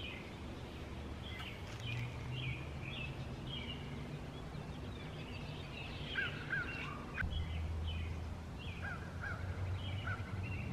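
Small birds singing outdoors, short chirped phrases repeated over and over, with a few lower notes in the second half. A low steady hum runs underneath.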